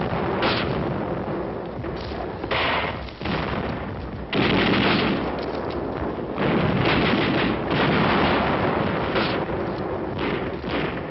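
Battle gunfire: a dense, nearly continuous run of rifle and machine-gun shots mixed with heavier blasts. It swells loudest about four seconds in and again around seven to eight seconds.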